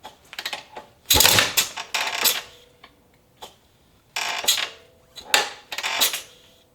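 Metal clattering and clicking in several short, irregular bursts, the loudest just after the first second and again around four to six seconds in.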